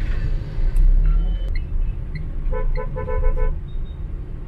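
Car engine and road rumble in city traffic, with a vehicle horn tooted in a rapid string of short beeps about two and a half seconds in.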